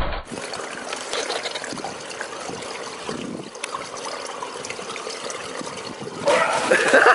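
Swimming-pool water trickling and lapping: a steady wash of water noise. Near the end it gives way to a louder noise.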